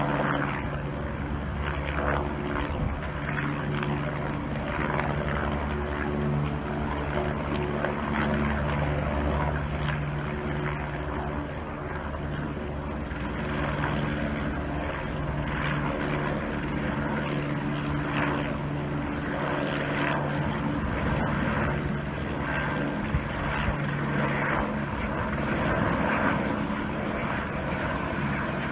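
Helicopter in flight: a continuous drone of rotor and engine, with a steady low hum that swells and fades slightly as it moves.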